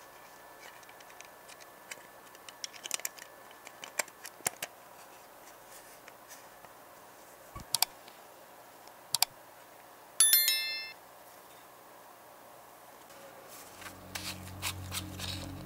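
Small scattered clicks and taps of plastic and metal model-car parts being fitted together by hand. About ten seconds in comes one short, bright metallic ping that rings for under a second. Music fades in near the end.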